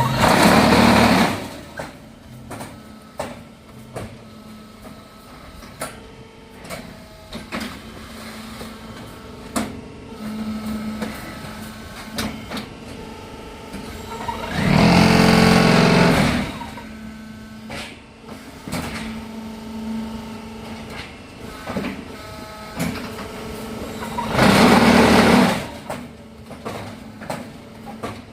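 QTJ6-15 concrete block making machine running through its moulding cycles: three loud bursts of the mould vibrator, each a second or two long, with clanks and a steady hum in between.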